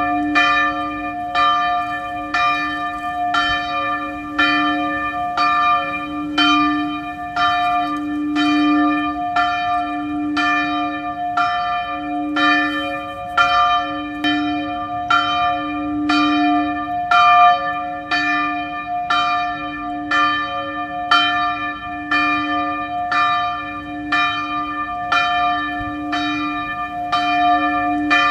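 Church bell struck over and over at a steady pace, a little more than once a second, each stroke ringing on into the next so the tone never dies away.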